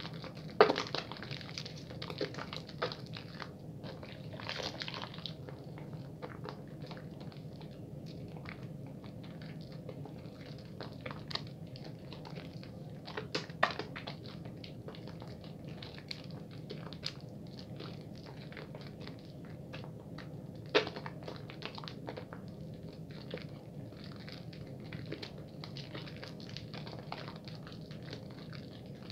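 Hands lathering a wet bar of soap at a fairly quick pace: a continuous soft crackle and squish of lather, with many scattered small clicks. A few sharper, louder clicks come about a second in, near the middle and about two-thirds of the way through.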